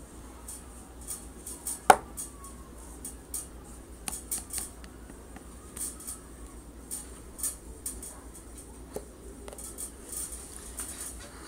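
Hard plastic action figures being handled, with scattered light clicks and taps as they knock against each other and the surface; one sharp, much louder click about two seconds in.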